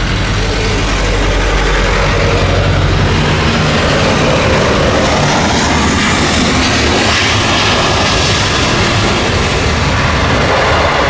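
Jet airliner engines at high thrust during a takeoff run, a loud, steady noise with a low rumble underneath that grows a little brighter in the middle.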